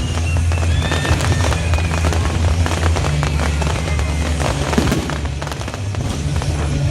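Fireworks display going off in quick succession, many overlapping bangs and crackles, with music playing underneath.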